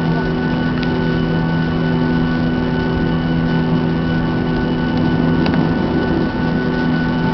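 Airliner engines heard from inside the cabin while the aircraft taxis after landing: a steady hum with several steady tones held throughout.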